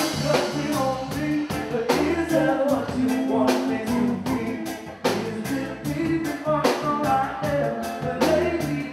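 Live band playing with a steady beat: a male singer at the mic over electric guitar, electric bass and drum kit.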